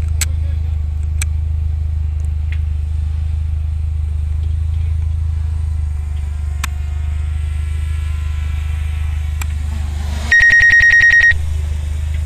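A steady low vehicle engine rumble, and about ten seconds in a loud electronic ringing trill: one high tone pulsing rapidly for about a second.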